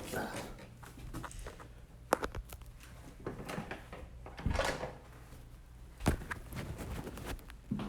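A few scattered sharp knocks and clicks, like a drawer or door being handled, about two, four and a half and six seconds in, over a faint low hum.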